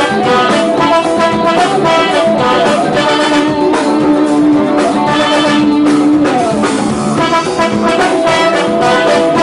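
Saxophone playing a melody over a forró band's backing with a steady drum beat, holding one long note through the middle.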